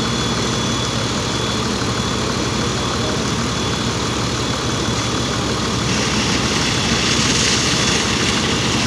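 Fire truck engine running steadily while it drives the pump for an aerial water stream, a continuous low drone. A hiss rises in the upper range about six seconds in.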